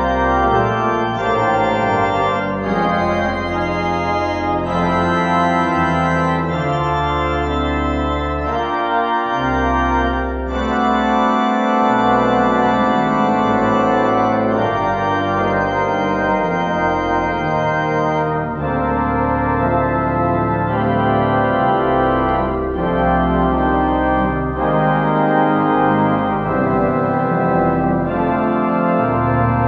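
Organ playing slow, sustained chords over deep bass notes, the harmony changing every second or two.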